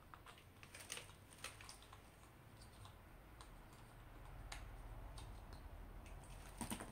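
Faint, irregular light clicks and taps of a spatula against a small cosmetic bowl as leftover clay mask product is scraped up and collected, over a low steady hum.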